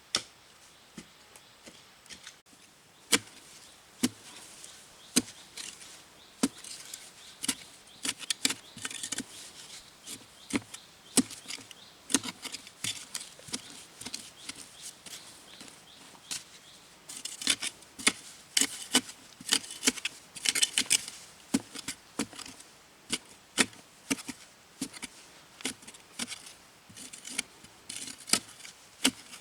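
Repeated chopping blows from a hand tool, about one a second and uneven. From a little past halfway, scraping and rustling fill the gaps between strokes.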